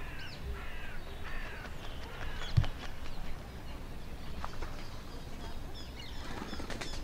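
A bird calling: a run of four short calls, each falling in pitch, over the first two and a half seconds, then a single low thump. Fainter short calls and clicks follow.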